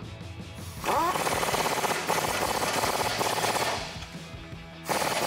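Impact wrench spinning up with a rising whine, then hammering in a rapid rattle for about three seconds as it runs down the lower strut-assembly bolt against a 19 mm wrench. A second, shorter burst starts near the end.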